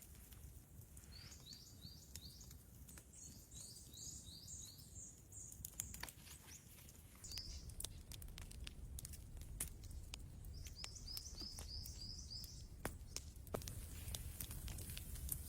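A small bird singing runs of short, high, falling chirps, about five notes a second, four times over. Faint scattered clicks and a low rumble sit underneath.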